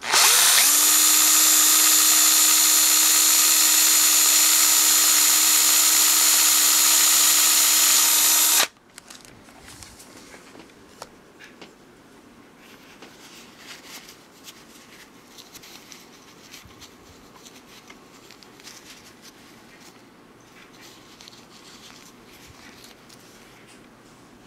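Cordless drill spinning a small twist bit through a metal bottle cap: the motor spins up quickly, runs at a steady speed for about eight and a half seconds, then stops abruptly. Faint handling clicks follow.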